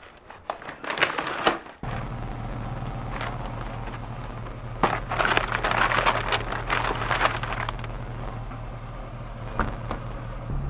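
A plastic carrier bag rustling and crinkling. Then comes a steady low hum of the Austin A40 Farina's BMC A-series four-cylinder engine idling, under more rustling of the bag as it goes into the boot. A sharp click sounds near the end.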